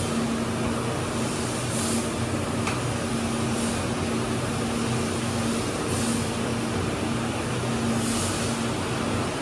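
Steady hum of running industrial equipment, with a low tone under a broad noise. A short high hiss swells about every two seconds.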